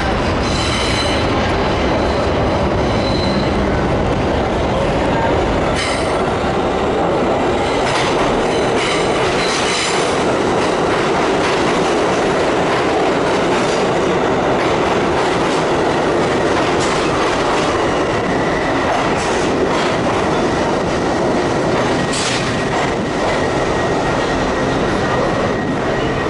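R188 subway train pulling into an underground station and slowing past the platform: a steady loud rumble of steel wheels on rail, with sharp clacks now and then, and a thin high wheel squeal in the second half.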